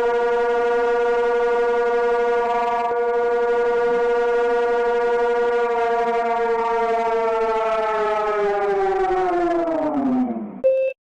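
Civil defense siren sounding a steady tone, then winding down with falling pitch in the last few seconds until it stops. A short electronic beep follows just before the end.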